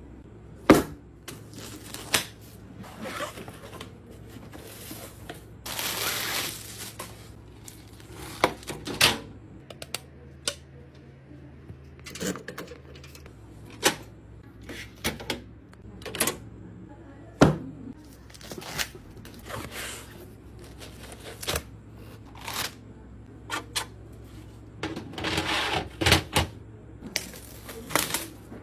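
Irregular clicks, knocks and clatter of computer parts being handled and fitted together during a PC build, with a couple of longer scraping or rustling noises about six seconds in and near the end.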